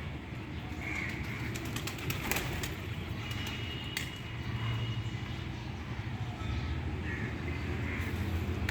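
Pigeons cooing, with a few short bird calls and some wing flaps, over a steady low rumble.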